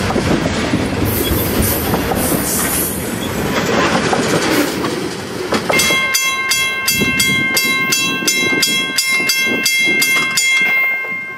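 Loaded LPG tank cars rolling past, wheels clattering over the rail joints. About halfway through it changes to a grade-crossing bell ringing steadily, about three strikes a second, over the quieter rumble of the cars rolling away.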